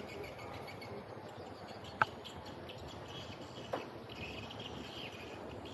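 Steady outdoor background noise with faint high chirping, broken by a sharp click about two seconds in and a softer one a little before four seconds.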